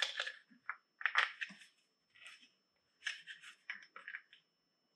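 Hard plastic parts of a snowmobile magnetic tether kit being handled and fitted together by hand: irregular bunches of small clicks, taps and rattles, about one bunch a second.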